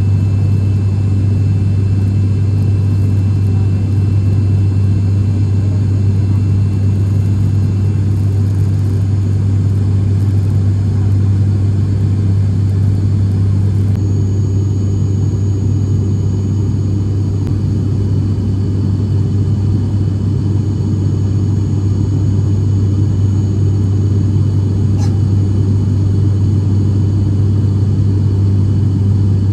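Turboprop airliner's engines and propellers droning steadily, heard from inside the passenger cabin, with a strong low hum.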